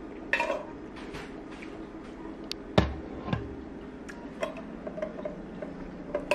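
Sips through a stainless steel straw from an insulated tumbler, with light clicks from handling the cup and straw. There is one sharper knock with a dull thud about three seconds in.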